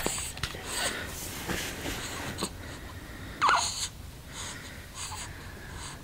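Young baby breathing noisily, with small soft snuffles and vocal noises and one short falling squeak about three and a half seconds in. These are the sounds of a baby straining as he fills his diaper.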